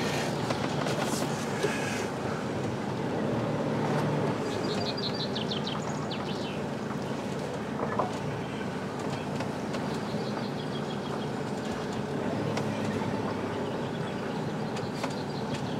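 Motorhome engine running at low speed, heard from inside the cab, with a steady drone and small cabin rattles as it creeps along a rough gravel track.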